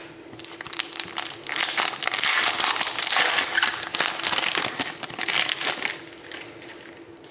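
Plastic trading-card pack wrapper being crinkled and torn open by hand, a dense crackling that builds about a second in and dies away near the end.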